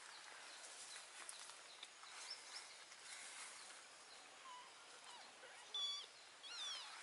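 Faint outdoor background hiss, then a few faint high-pitched kitten mews near the end, one steady and the next falling in pitch.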